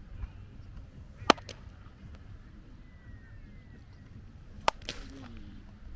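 A baseball smacking into a leather glove during a game of catch: two sharp pops about three and a half seconds apart, the second the louder.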